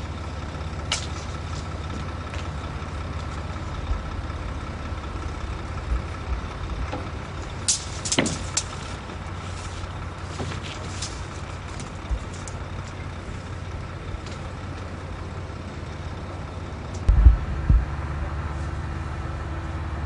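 Heavy diesel engine idling steadily, a low rumble with a faint high whine over it. Scattered clicks and knocks of work sound over it, with a louder pair of knocks near the end.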